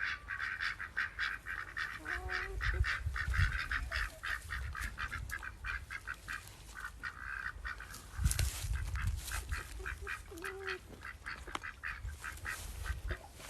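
Ducks quacking in a rapid, continuous chatter, about four or five calls a second, with two short stretches of low rumble.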